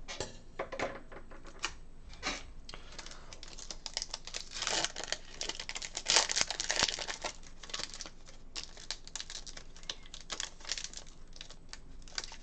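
A foil trading-card pack wrapper being crinkled and torn open by hand, with a run of small clicks and rustles from handling the pack and cards. The crinkling is loudest about halfway through.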